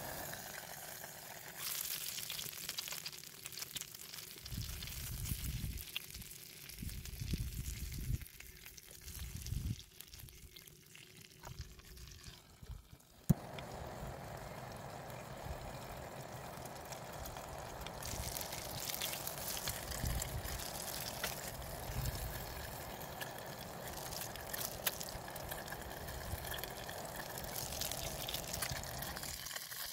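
Meat skewers sizzling in a closed hot-sandwich pan over a camping gas stove, a steady frying hiss. A single sharp click comes about halfway through.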